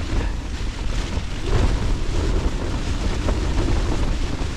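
Storm wind of about 25 to 40 mph buffeting a tent's flysheet and rumbling on the microphone, a steady loud noise.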